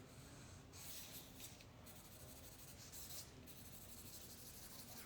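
Faint scratching of a pen writing on a poster, in short strokes of about half a second each, as an autograph is signed.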